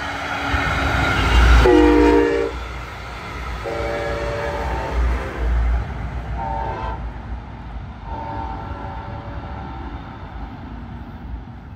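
Brightline passenger train passing at speed, its horn sounding four blasts: long, long, short, long, the grade-crossing signal. The first blast drops in pitch, and the train's rumble is loudest early on and then fades away.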